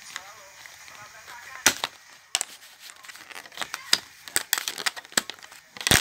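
Clear plastic blister tray clicking and crackling as a braided USB cable is pulled out of it: a string of sharp clicks, the loudest a bit under two seconds in and just before the end.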